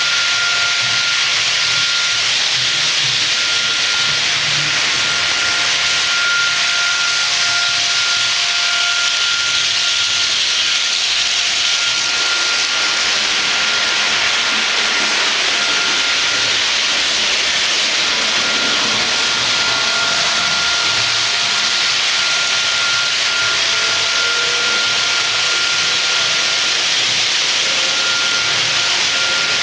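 Märklin model train running along the layout track: a steady rushing hiss with a thin high whine that comes and goes.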